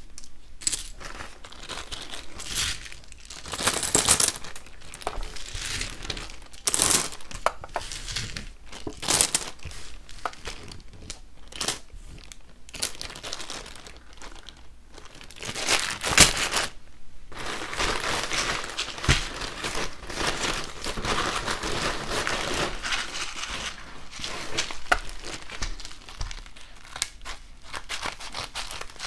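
Plastic packaging crinkling and rustling as a clear plastic bag and a padded bubble mailer are handled and opened. The rustles come in irregular spells, with louder bursts about four seconds in and again around sixteen seconds, and a long dense stretch after that.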